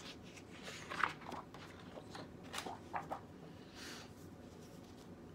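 Paper pages of a spiral-bound coloring book being turned by hand: several short rustles and swishes, the loudest about a second in, and a brief hiss near the end.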